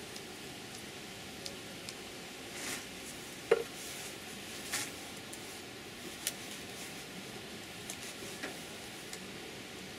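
Metal hive tool prying and scraping at the wooden frames of an open beehive, giving a scattered series of clicks and knocks over a steady hiss. The loudest knock is about three and a half seconds in.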